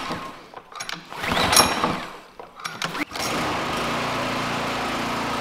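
Toro push mower's Briggs & Stratton engine pull-started for its first start ever, on fresh gas and oil: the recoil starter is pulled, the engine catches about three seconds in and then runs steadily.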